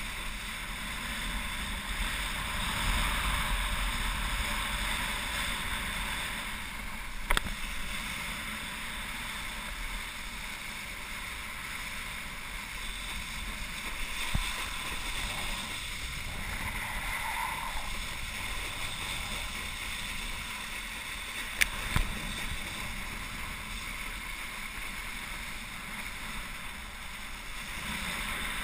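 Wakeboard skimming and carving across lake water, with steady rushing spray and wind buffeting the helmet camera's microphone. A few sharp knocks cut through now and then.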